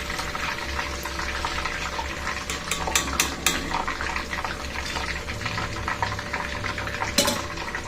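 Chicken pieces deep-frying in hot groundnut oil, a steady sizzle, on their second fry. A run of metal utensil clinks against the pan comes around the middle, and one more near the end.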